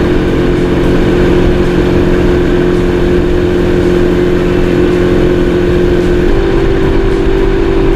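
Sea-Doo Fish Pro jet ski engine running at a steady cruising speed over a rush of wind and water, its pitch stepping up about six seconds in as the throttle opens further.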